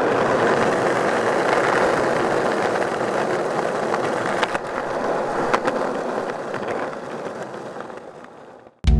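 Skateboard wheels rolling fast over rough asphalt, a steady grinding roll with a few sharp clicks from cracks or grit about four and a half and five and a half seconds in, fading away near the end.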